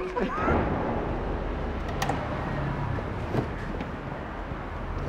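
Low, steady vehicle rumble of street noise, with two sharp clicks about two and three and a half seconds in.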